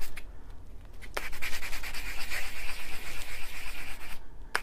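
Rough side of a Vintaj buffing block scuffing a metal pendant blank in rapid strokes, a dry rasping sound, roughening the metal so paint will grip. It starts about a second in and stops shortly before the end.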